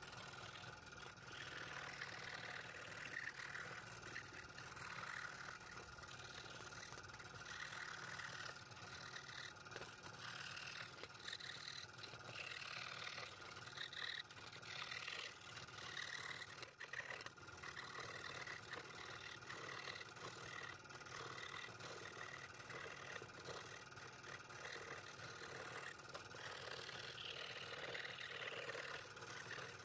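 Scroll saw running steadily with a number 3 blade cutting through quarter-inch scrap wood, the cutting noise swelling and easing as the blade works along the curves.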